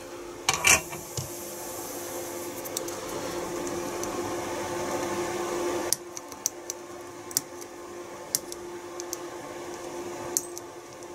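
A steady hum that cuts off suddenly about six seconds in, with a couple of sharp clicks near the start. After the hum stops, side cutters snip the excess resistor leads off a circuit board: a sharp click with each cut, about six, irregularly spaced.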